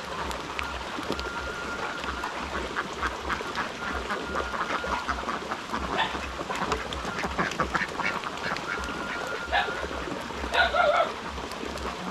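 Domestic ducks quacking a few times, loudest about two-thirds of the way through, over steady rain and dripping water.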